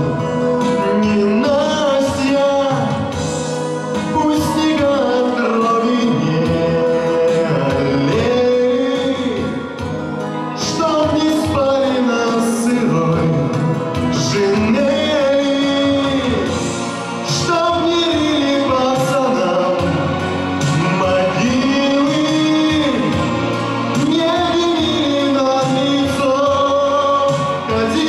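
A male vocalist singing into a handheld microphone over backing music.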